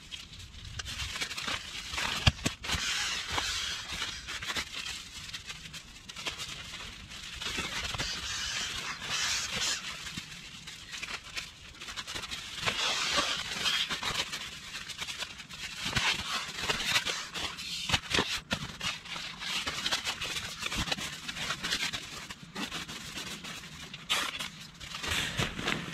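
Nylon pump sack (an Exped Schnozzel) rustling and swishing as it is filled with air and squeezed into an Exped inflatable sleeping mat, in repeated swells a few seconds apart, with the odd sharp crinkle of fabric.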